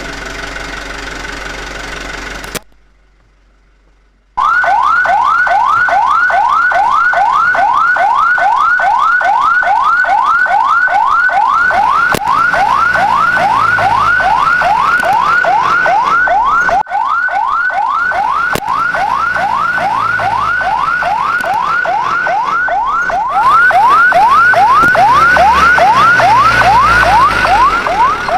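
Fire truck's electronic siren in a fast yelp, each sweep rising quickly, about three a second, starting about four seconds in after an engine idling and a short silence. The truck's engine grows louder underneath near the end.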